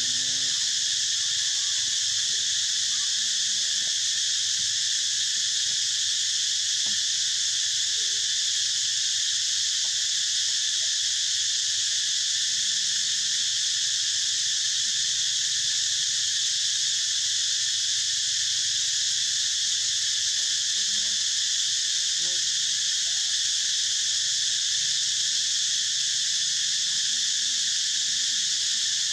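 A steady insect chorus: a continuous high, unbroken buzzing drone with no change in level.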